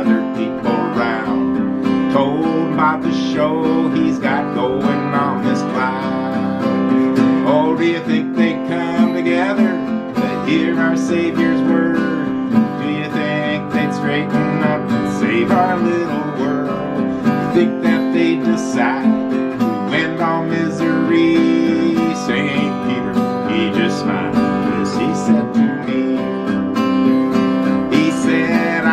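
Acoustic guitar strummed with a pick, steady chords.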